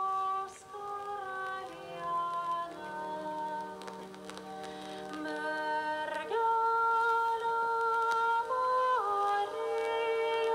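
Slow, calm music of long held notes that step up and down in pitch.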